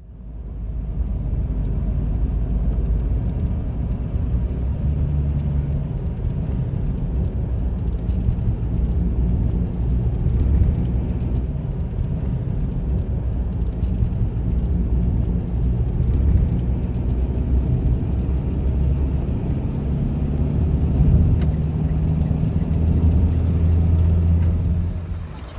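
Steady low rumble of a car driving, with a faint engine hum that comes and goes.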